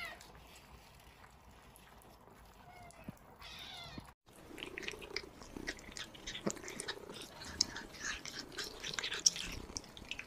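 Kittens eating: one kitten gives a short meow about three seconds in, then several kittens chew and smack at wet food with quick, irregular clicking sounds.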